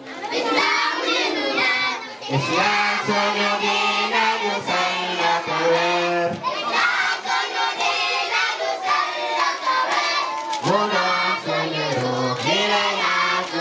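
A group of children chanting an Arabic Islamic song in unison, in sung phrases with short breaks between them.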